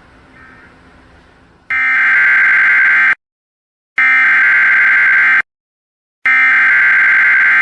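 Emergency Alert System SAME header: three identical bursts of buzzing digital data tone, each about a second and a half long with about a second of silence between them, starting a little under two seconds in. The coded header opens a National Weather Service severe thunderstorm watch alert.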